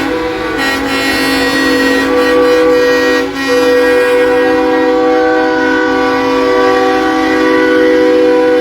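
Many truck air horns sounding at once, held as a steady chord of several pitches with a brief dip about three seconds in.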